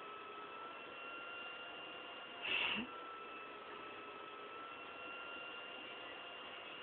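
Steady electrical hum and hiss with a few thin, high, steady tones. About two and a half seconds in, a short, louder burst of noise breaks in, lasting under half a second.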